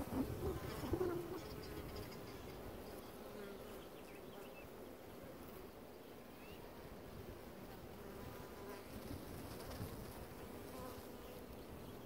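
Honey bees buzzing in flight around a hive entrance: a steady hum of many wingbeats, with single bees droning higher or lower as they pass. A louder low rumble dies away in the first second or two.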